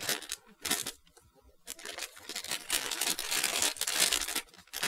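A thin clear plastic bag crinkling and rustling as hands work it open around an airbrush. There are two short rustles in the first second, then a longer stretch of crinkling from a little under two seconds in until near the end.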